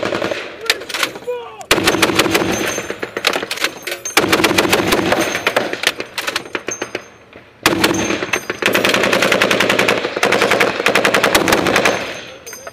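Loud, close-up fire from a .50 calibre M2 Browning heavy machine gun, rapid evenly spaced shots in long bursts. A short burst at the start is followed by three bursts of a few seconds each, with brief breaks between.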